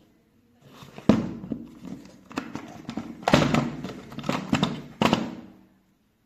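Handling noise from unpacking a cordless drill kit: a run of knocks and clatters as hard items are picked up and set down, the sharpest about a second in and another cluster a little past three seconds in, stopping near six seconds.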